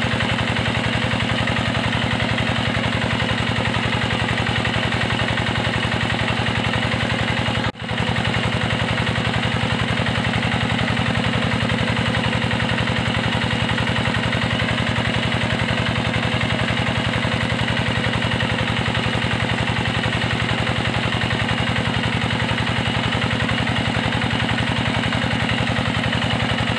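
An engine running steadily at a constant speed, with a brief break about eight seconds in.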